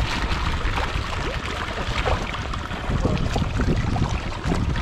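River water splashing and sloshing as fish strike at feed pellets tipped from a sack held in the water: a run of small, quick splashes over a steady low rumble.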